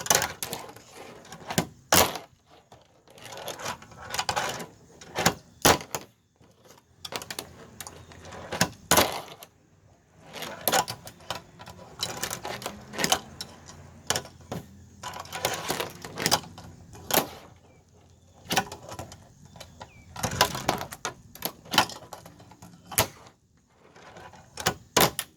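A Tech Deck fingerboard clacking on a plastic trash can lid: many sharp, irregular clicks as the tiny board's tail and wheels strike the lid, with short stretches of rolling rattle between them.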